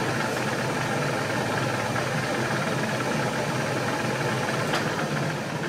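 Milling machine running, a 3 mm slot drill cutting a short slot in a metal part: steady motor and cutting noise that fades away near the end.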